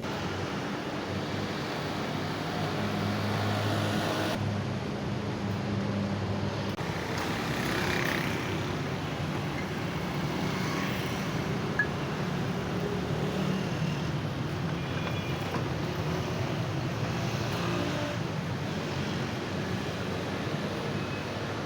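Road traffic going past, a steady hum of vehicle engines and tyre noise that swells and fades, with one short click about twelve seconds in.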